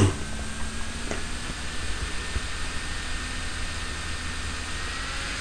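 Steady hiss with a faint low hum: background noise of the recording, with no distinct events.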